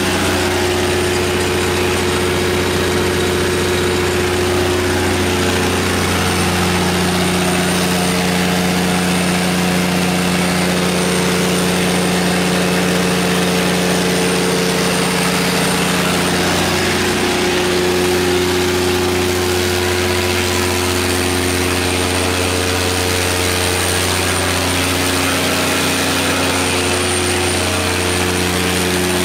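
Cummins QSX15 inline-six diesel engine of a 500 kW standby generator set running steadily at a constant speed, with a faint high whine over it.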